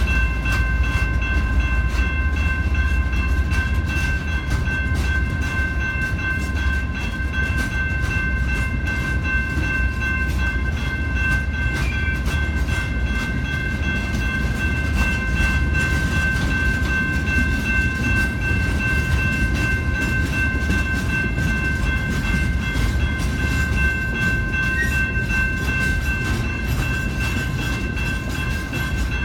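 Train rolling past with a steady low rumble from its wheels and cars, and a steady high-pitched whine underneath it.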